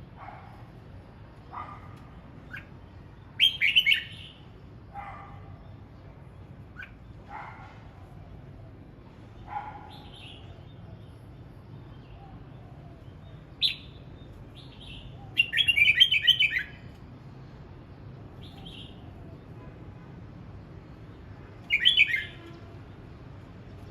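Red-whiskered bulbul singing in short, bright, chattering phrases, three loud ones spaced several seconds apart, with softer, lower calls in between.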